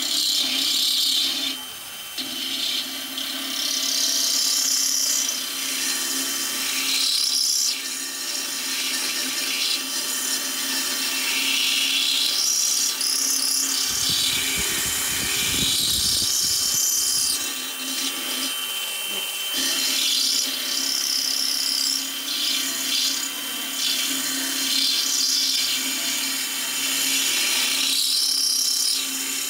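DeWalt cordless drill driving a small abrasive grinding point, gouging out a crack in a cast-iron stove panel to prepare it for brazing. A steady motor hum runs under a scratchy grinding that comes and goes as the stone bears on the iron.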